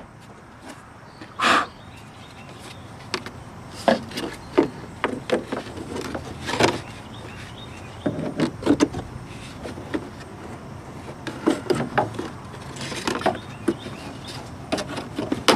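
Car trim and cover pieces being handled and pushed back into place by hand: irregular knocks, clicks and scrapes, with louder clatters about a second and a half in, near seven seconds, and around thirteen seconds.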